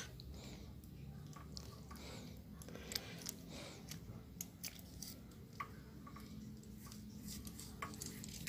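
Faint handling sounds of hand-stitching leather: thread drawn through the stitching holes of a leather collar end and wrapped around it, with scattered small clicks and rustles.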